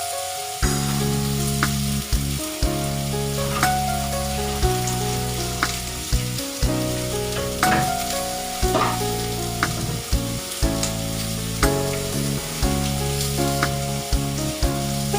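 Food sizzling in a pot, with clicks of stirring. Background music with held chords plays underneath.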